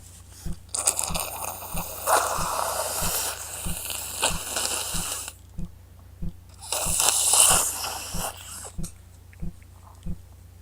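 A woman with a head cold blowing her nose into a tissue twice: a long wet blow of several seconds, then a shorter one near the middle. The blows are snotty through a stuffed-up nose.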